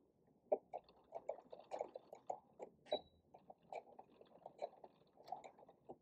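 Domestic electronic sewing machine stitching slowly forward and back to back-tack the elastic seam: faint, uneven needle clicks and taps, with a brief high beep about three seconds in.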